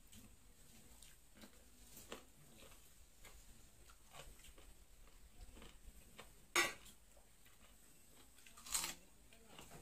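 Faint hand-eating sounds: chewing, and fingers mixing rice on a steel plate, broken by a few sharp clicks. The loudest click comes about six and a half seconds in, and another near the end.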